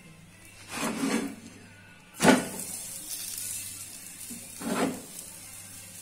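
Wooden spatula scraping under a batbout on a hot griddle pan and flipping it. The bread lands with a sharp slap about two seconds in, then sizzles as its oiled side meets the pan. Another scrape of the spatula comes near the end.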